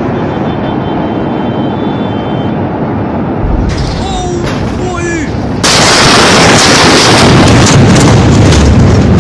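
Steady street noise and a few shouts, then a little over halfway through a sudden, very loud blast from the Beirut port ammonium nitrate explosion that carries on as a heavy rumble.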